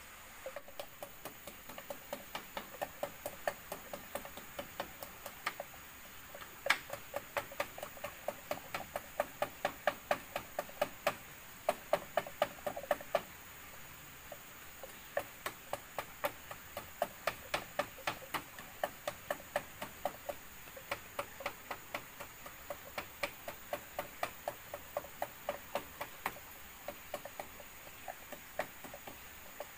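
Wooden pestle pounding chilies and shrimp paste for sambal terasi in a bamboo-tube mortar: steady repeated knocks, about two to three a second, with a short break about halfway through.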